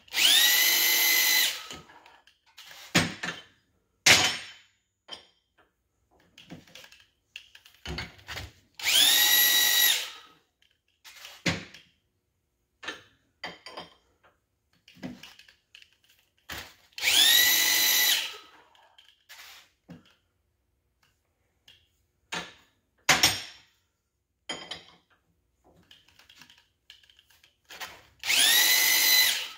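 Handheld electric drill spinning a taper-cone chamfer tool against the bore edge of a Chevy 283 connecting rod, breaking the edge. The drill runs in four short bursts of about a second and a half each, its motor whine rising as it spins up and dropping as it stops. Between runs come metal clicks and clanks as the rod is moved in the clamp.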